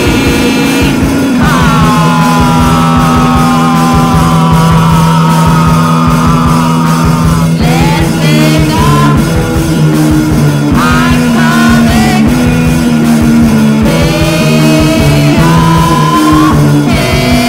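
Noise-rock music from a bass-less guitar-and-drums trio: guitars hold low droning notes that change every few seconds, under high, wavering lines that slide downward in pitch.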